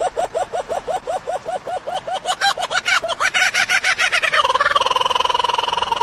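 A bird calling in a fast run of short repeated notes, about five a second, that rise in pitch and speed up. About four and a half seconds in, the run turns into one long buzzy held note.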